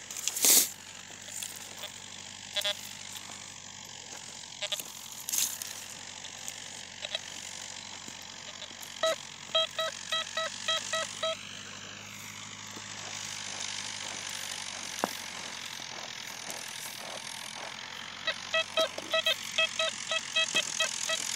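Metal detector sounding its target tone: runs of short, same-pitched beeps, about three to four a second, as the search coil passes back and forth over a buried metal object. One run comes near the middle and a longer run near the end, over a faint steady hiss.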